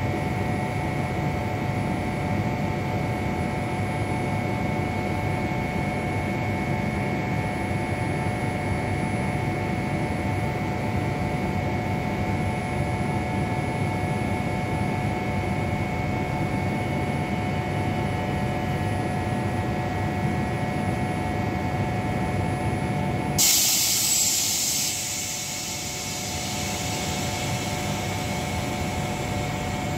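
A stationary Trenitalia double-deck electric train (Hitachi Rock) humming steadily, with several constant whining tones over a low rumble. About 23 seconds in a sudden loud hiss of air bursts out and fades over a couple of seconds, and the low rumble drops away after it.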